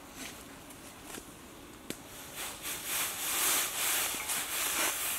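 A few light clicks, then from about two seconds in a rustling, crackling noise that swells and falls. It fits dry forest leaves and litter being disturbed as the snakes are handled and lowered to the ground.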